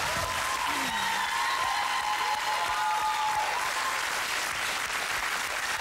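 Studio audience applauding steadily, with some cheering over the clapping.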